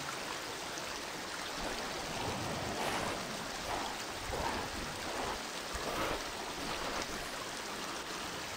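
Running river water rushing in a steady wash, with several brief louder swells of splashing through the middle.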